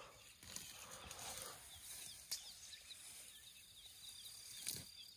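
Quiet outdoor ambience: a faint even hiss with soft high chirps and a couple of small clicks.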